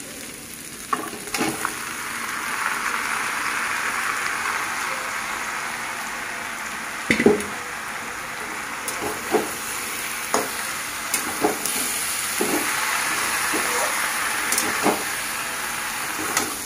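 Chicken pieces sizzling as they go into hot oil and fried onions in a metal kadhai; the sizzle swells about a second in. A metal spatula scrapes and clinks against the pan as the mix is stirred, the loudest clank about seven seconds in.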